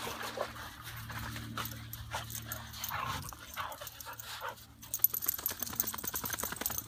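Two dogs play-wrestling, with dog sounds and their paws scuffling in wet sand. A dense run of quick scuffling clicks starts about five seconds in.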